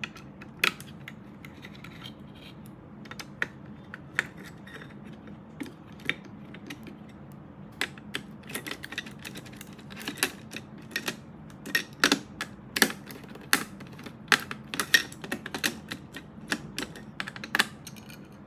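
Light clicks and taps of small screws being undone and a metal M.2 heatsink cover being handled on a motherboard. The clicks are scattered at first and come thicker and faster through the second half.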